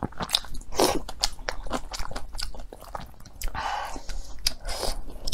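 Close-miked chewing and biting of food, a quick run of wet mouth clicks and crunches, with two short noisy mouth sounds a little past the middle.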